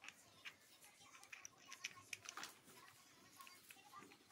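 Faint, scattered clicks and small taps of hands handling and fitting parts at a bicycle's handlebar and stem, with its cables rattling lightly.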